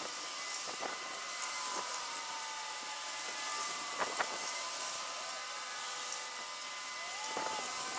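Outdoor ambience: a steady airy hiss with a few faint whistled tones gliding up and down, and two soft ticks about four seconds in.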